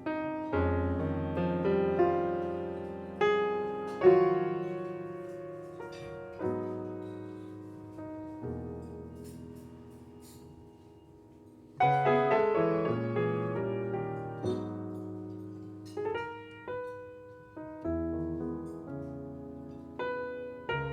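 Piano playing slow, spacious chords and melody notes in a jazz ballad style, each struck note left to ring and fade. About ten seconds in the playing thins out almost to nothing, then picks up again with busier chords.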